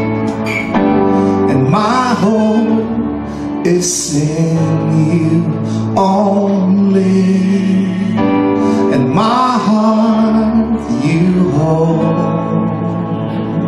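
Live worship band playing a song: a man sings the lead with long held notes over electric guitar and steady backing chords.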